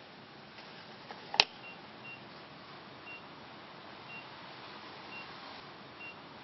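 A sharp click about a second and a half in, then a short high electronic beep repeating about once a second: a car's cabin warning chime, over a steady hiss.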